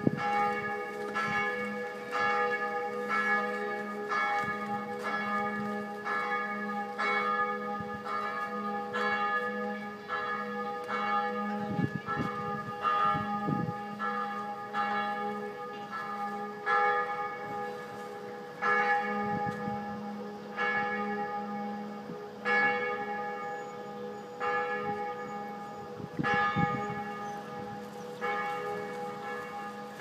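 Church bells ringing the midday peal: repeated strikes over a long, overlapping hum, about one a second at first, slowing to about one every two seconds in the second half.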